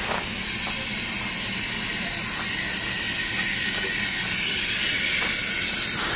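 Shay geared steam locomotive standing and venting steam: a steady hiss that grows a little louder past the middle.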